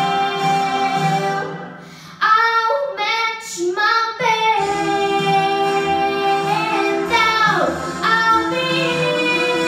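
A girl singing a show tune into a handheld microphone over musical accompaniment. She holds a long note, the sound dips briefly about two seconds in, then comes a quick run of short notes and long sustained notes with slides in pitch.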